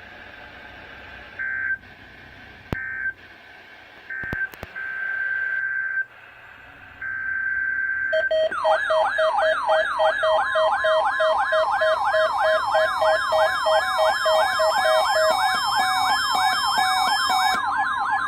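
NOAA Weather Radio: short, irregular bursts of screechy emergency-alert data tones. About eight seconds in, a weather radio receiver's alarm goes off with a fast warbling siren over a steady lower tone. About two seconds later the steady 1050 Hz NOAA weather radio warning tone joins it.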